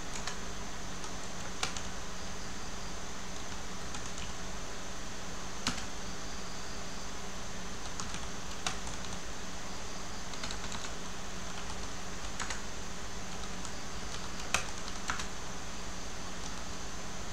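Computer keyboard keystrokes, scattered and sparse, clicking over a steady background hum and hiss.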